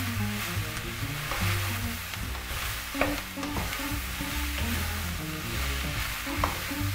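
Diced courgette, spring onion and green pepper sizzling in oil in a frying pan over high heat while a wooden spatula stirs and tosses them, with a couple of sharp clacks about three seconds in and near the end. Background music with a low bass line plays alongside.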